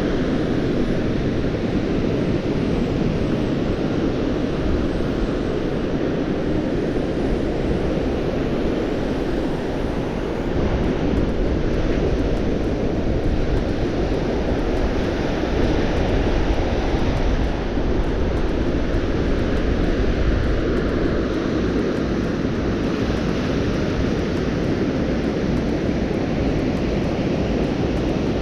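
Strong gusting wind buffeting the microphone: a continuous low rumble that grows a little louder about ten seconds in.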